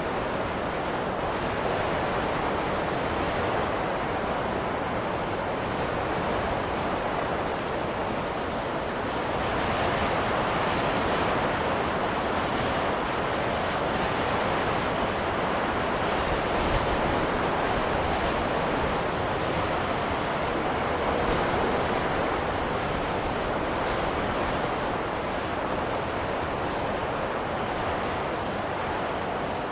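Wind blowing steadily as a continuous rushing hiss. It swells and eases slowly and is a little stronger through the middle.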